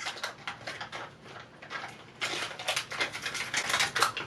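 Plastic candy wrapper crinkling as it is handled and torn open, a few scattered crackles at first, then dense continuous crinkling from about halfway.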